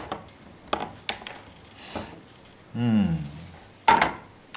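A few sharp clicks and knocks from a small flashlight being handled, with a short murmured voice about three seconds in.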